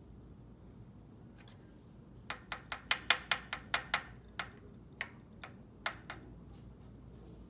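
Hard plastic clicking and tapping against a plastic tracheostomy-kit tray: a quick run of sharp clicks, about four a second, that thins out to a few separate taps and stops near the end.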